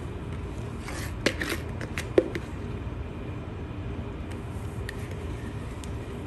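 Plastic spatula scraping a thick cream filling out of a plastic mixing bowl: soft scrapes with two sharper clicks, about one and two seconds in, over a steady low room hum.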